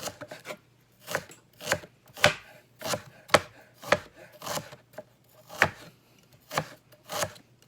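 Knife chopping ginger on a cutting board: sharp, irregular strokes about one to two a second as the ginger strips are minced.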